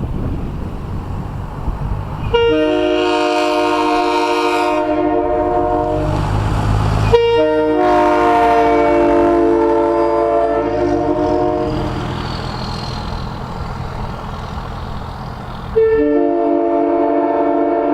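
Leslie Supertyfon multi-note train air horn sounding a chord in three long blasts, the last starting near the end, with a low train rumble between them.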